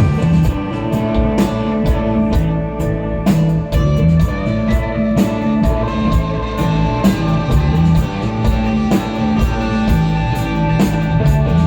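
A live rock band playing an instrumental, psychedelic desert-rock piece: sustained electric guitar notes over a steady drum kit beat, with no vocals.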